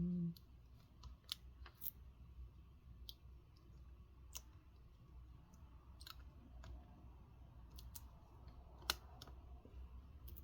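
Faint, scattered clicks and ticks over a low steady hum, with one sharper click about nine seconds in, as a stretch-release adhesive strip is slowly pulled out from under a laptop battery.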